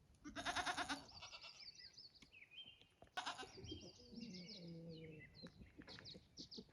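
Goats bleating faintly, a few short calls.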